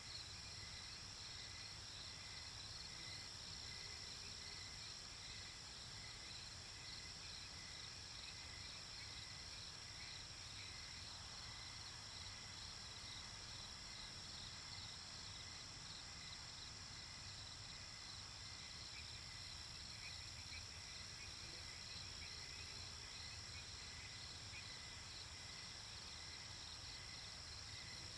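Crickets chirping steadily in a continuous chorus over a constant hiss of white noise.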